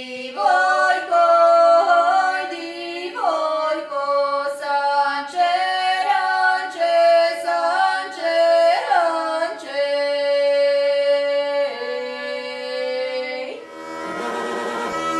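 A female voice singing a traditional Croatian folk song unaccompanied, moving between long held notes. Near the end the singing stops and a bagpipe starts up with a steady drone.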